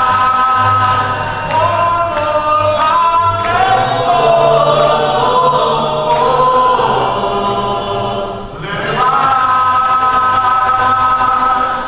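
Unaccompanied gospel singing in long, held notes that step from one pitch to the next, with a brief break about three-quarters of the way through.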